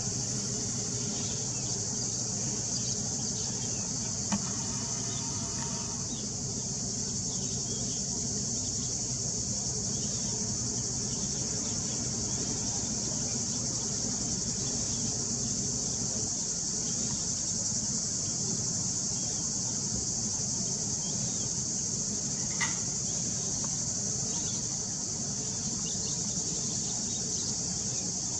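Cicadas shrilling in a steady, unbroken chorus. Under it runs a low engine hum that fades after about the middle.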